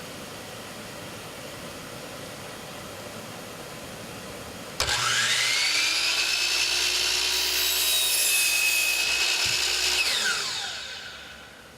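Sliding compound miter saw switched on: the motor spins up quickly with a rising whine, runs, and dips briefly in pitch as the blade cuts through wood. Near the end the trigger is released and the blade winds down with a falling whine.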